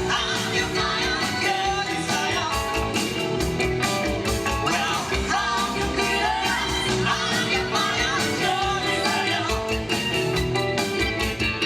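Live rock-and-roll band music with female vocals singing over electric guitar, bass, keyboards and drums.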